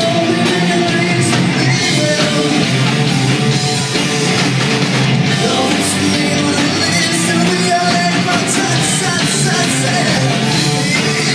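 Live rock band playing loud: electric guitars and drums, with singing.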